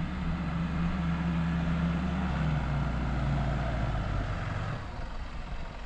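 Mitsubishi L200 Triton pickup's engine running steadily under load as it climbs a steep grassy slope, the engine note falling away about a second before the end.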